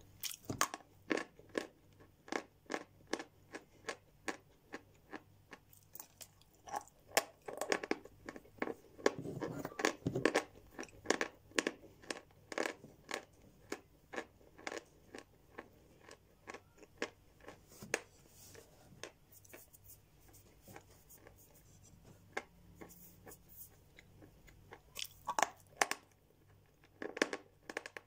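Lumps of edible chalk being bitten and chewed close to the microphone: short, dry crunches about one or two a second, dense in the first half, thinning out after the middle and bunching again near the end.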